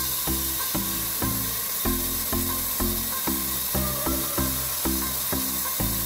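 Background music with a steady beat and a bass line changing note about two and a half times a second, over a steady high hiss.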